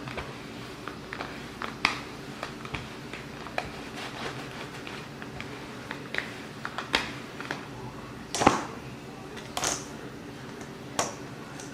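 Kitchen work at the counter: scattered knocks and taps of handling dough and utensils, the loudest knock about eight and a half seconds in, over a steady low hum.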